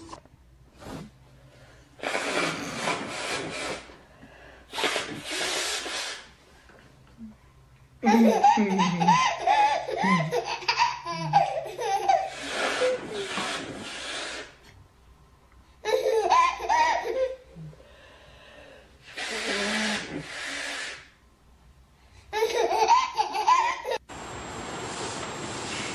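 Babies laughing in repeated bouts of squealing giggles with breathy gasps between them. Near the end the laughter gives way to a steady hiss.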